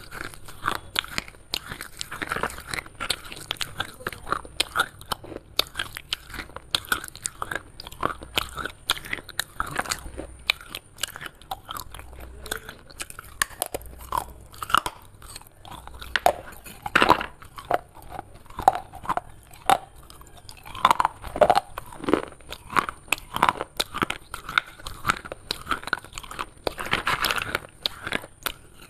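Close-up crunching of broken pieces of dry clay being bitten and chewed: a rapid, uneven run of sharp cracks, with several louder crunches in the second half.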